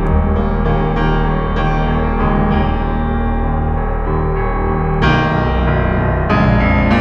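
Background piano music: sustained notes and chords, with a fuller chord struck about five seconds in.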